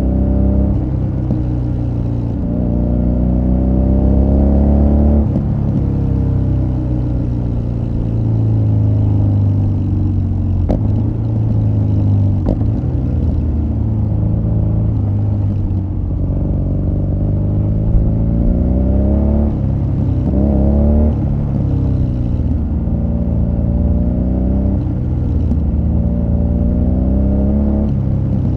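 BMW R nineT Scrambler's 1170 cc boxer twin running through an Akrapovic exhaust while riding. The engine note climbs under throttle and drops back several times.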